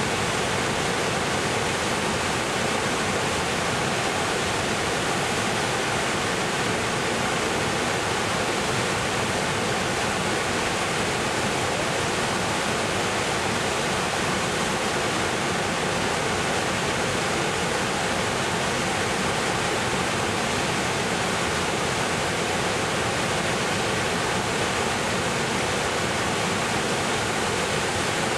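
Victoria Falls, a great waterfall on the Zambezi River in heavy flow: a constant, even rushing of falling water.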